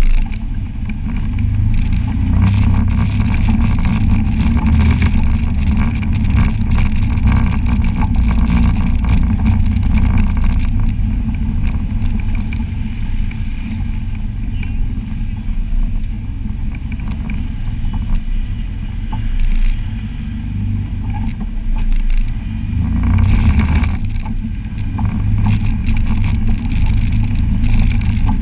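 Side-by-side UTV engine running steadily while driving over a rough dirt trail, with frequent rattles and knocks from the bouncing vehicle. The engine surges briefly about three quarters of the way through.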